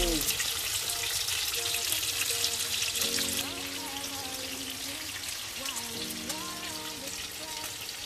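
Salmon steaks sizzling as they fry in oil in a pan, a dense crackling hiss that drops to a softer hiss about three and a half seconds in. Background music with long held notes comes in about three seconds in.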